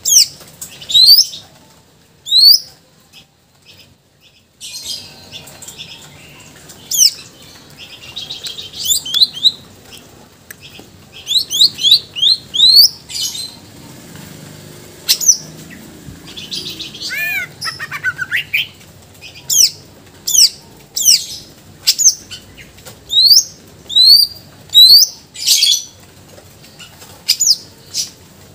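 Greater green leafbird (cucak ijo) in full song, showing off its mimicked phrases (isian): rapid, sharp, high whistled notes sweeping up and down, delivered in quick bursts with short pauses. About two-thirds of the way through comes a short run of lower, falling notes.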